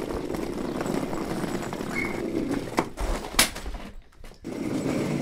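Wheeled suitcases rolling, their wheels rattling steadily over the ground. A few sharp knocks come a little past halfway as a case is handled, then the rolling briefly drops out and starts again.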